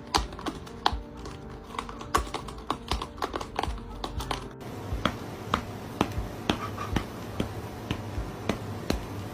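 Music with sustained tones under a string of sharp clicks or taps. The clicks are irregular at first and settle to about two a second in the second half.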